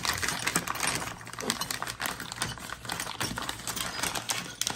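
Clear plastic bag of steel pin punches being handled over kraft packing paper: the plastic crinkles and the punches click against each other in quick, irregular taps.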